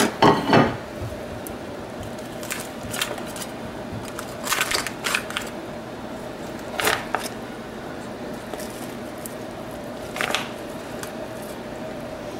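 A metal utensil scooping baked casserole out of a foil pan, with scattered scrapes, crinkles and clinks against the foil and a ceramic plate; the loudest clatter, in the first second, is the plate being put down. A faint steady hum runs underneath.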